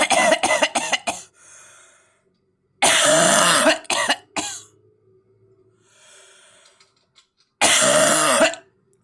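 A man coughing in fits: a quick run of short coughs at the start, a long cough about three seconds in followed by two short ones, and another long cough near the end, with quieter breaths drawn in between.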